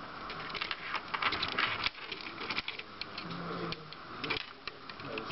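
LEGO Power Functions motors driving their gears in short spurts, a clicking, ratcheting gear clatter that starts and stops several times.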